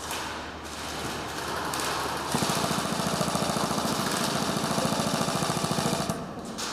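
Airsoft guns firing on full auto: a fast, even rattle of shots that starts about two seconds in and stops shortly before the end.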